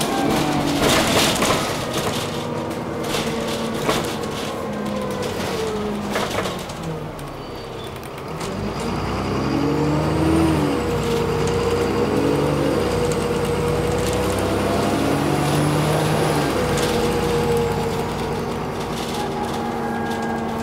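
Alexander Dennis Enviro400 double-decker bus heard from inside the passenger saloon: the diesel engine eases off and slows, then about eight seconds in pulls away again, its note rising and shifting through the automatic gearbox's changes, with a faint high whine. A few short clicks and rattles come in the first few seconds.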